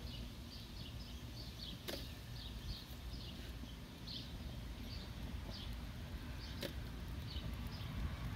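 Small birds chirping: many short, high chirps repeating irregularly over a steady low outdoor rumble, with two sharp clicks, about two seconds in and just under seven seconds in.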